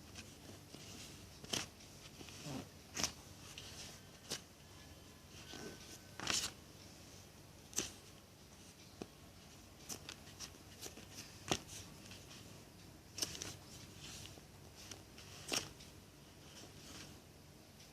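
Hands handling a jumbo foam squishy toy: faint, irregular short rustles and taps, a dozen or so spread unevenly.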